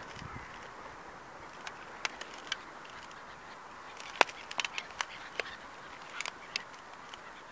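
Die-cast metal model car cracking and creaking as a sneaker sole presses down on it over gravel: a scattered run of sharp cracks and ticks, the loudest about four seconds in, with a cluster of further cracks after it.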